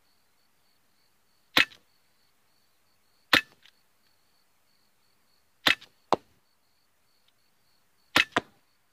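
SIG Sauer P320 CO2 blowback air pistol firing .177 pellets: six sharp shots. The first two come about two seconds apart, and the last four fall in two quick pairs.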